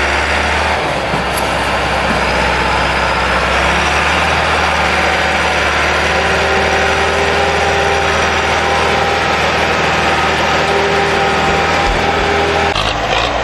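Diesel tractor engine running steadily, with a loud low hum and held engine tones; the sound changes abruptly near the end.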